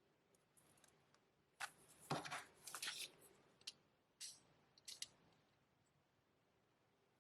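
Hands handling CD album packaging: a cluster of short sharp clicks and crinkling rustles from about one and a half to five seconds in, then quiet.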